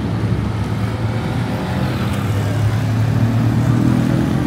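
Road traffic on a busy city street: motor vehicle engines running as cars, vans and motorbikes pass, with one heavier engine getting louder in the second half.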